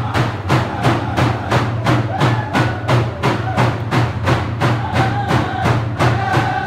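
Dene drum-dance music: frame hand drums beaten in a steady beat of about four strokes a second, with singers chanting long held notes over them.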